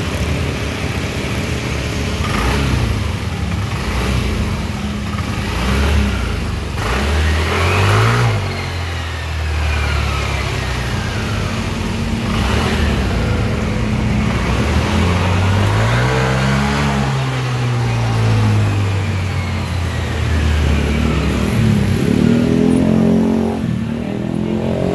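Single-cylinder engine of a Honda Vario 150 scooter, bored up with a 59 mm piston, running through a CLD Racing C3 round aftermarket exhaust and revved up and back down several times, with the biggest rev about two-thirds of the way through.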